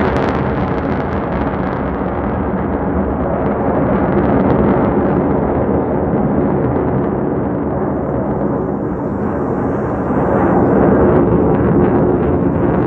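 Jet roar of Blue Angels Boeing F/A-18 Super Hornets flying past: a loud, steady rumbling roar whose high end dulls over the first few seconds as it recedes, then swells louder again about ten seconds in.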